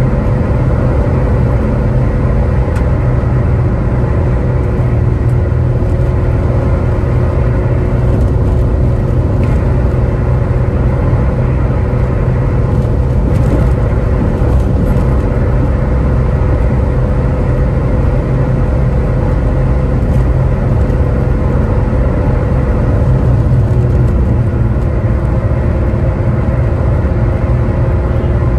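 Maruti Suzuki Swift cruising near its top speed, about 150–160 km/h with the engine held near 4,000 rpm, heard from inside the cabin: a loud, steady drone of engine, tyres and wind with a low rumble and a constant hum.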